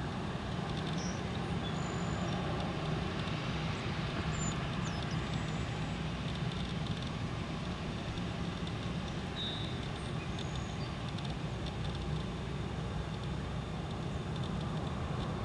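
Airbus A320-214's CFM56 jet engines at taxi power: a steady low rumble with a hiss over it.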